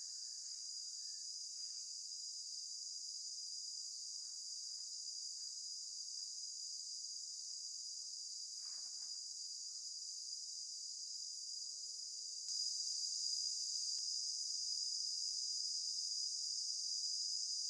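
Steady, shrill insect chorus, a continuous high drone that gets louder about twelve seconds in, with faint rustling of garden plants being handled.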